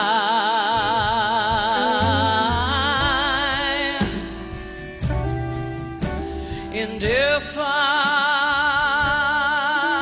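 A woman's singing voice holding long notes with wide, even vibrato over a live band with bass. The first note sustains for about three seconds. A second note swoops upward about seven seconds in and holds to the end.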